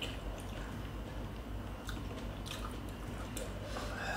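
Quiet eating sounds: soft wet mouth clicks and smacks of chewing, with a few light taps scattered through, over a low steady hum.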